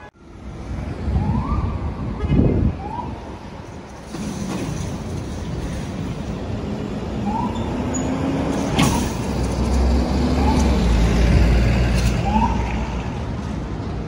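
City street traffic: vehicles driving past, with a truck's engine passing as a deep low drone that is loudest a little past the middle.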